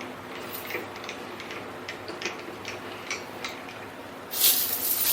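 Harbor Freight mini lathe running while a 1-inch drill bores into polycarbonate, a steady motor hum with irregular light ticks from the cut. Near the end a loud hiss starts.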